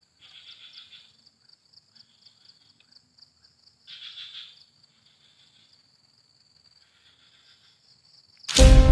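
Insects chirping: a steady, fast-pulsing high trill, with four shorter, louder bursts of lower chirping, the strongest about four seconds in. Near the end, loud music cuts in abruptly.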